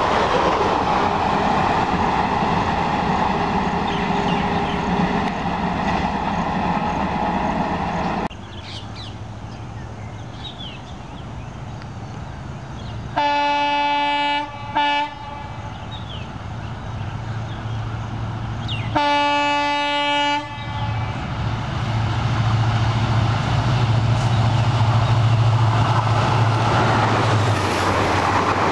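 Passenger coaches of an Indian Railways train clattering past on the rails. After a break, a diesel locomotive's horn sounds a long blast with a short toot, and then another long blast. The locomotive then passes with a low engine drone, followed by rushing coaches.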